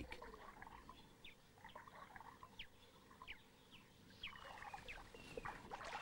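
Near silence: faint outdoor ambience with scattered short, high chirps that drop quickly in pitch, about two a second.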